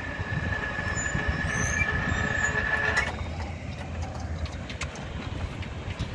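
Railroad crossing warning bell ringing as one steady high tone while the gates go up, stopping about three seconds in, the sign that the crossing is clearing. A low rumble runs underneath throughout.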